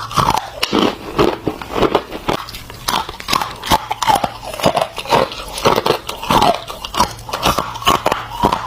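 Freezer ice being bitten and chewed: a steady run of sharp crunches, roughly two or three a second, with no pauses.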